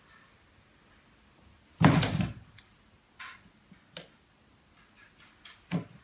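A single loud thump on a tall, empty cardboard TV box as a cat strikes it, then a few faint knocks and rustles.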